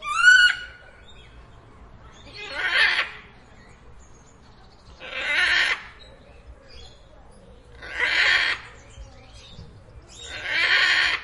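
Parrot screeching: a short rising call at the start, the loudest, then four harsh screeches repeating about every two and a half seconds, each lasting under a second.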